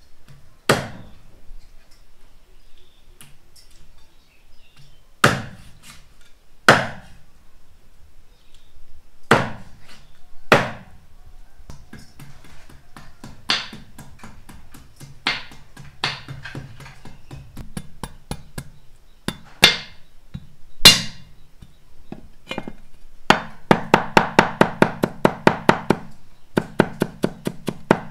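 Meat cleaver striking a thick round wooden chopping block. Single chops come a few seconds apart, then near the end a fast even run of about five chops a second as a yellow root is minced.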